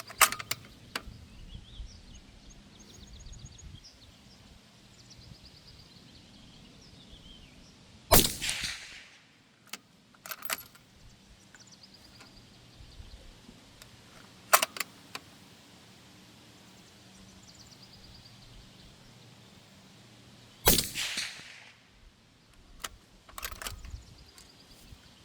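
A 25 GT rifle fitted with a Silencer Co Omega 300 suppressor firing several suppressed shots several seconds apart, each a sudden sharp report, some trailing off over about a second, with smaller clicks in between.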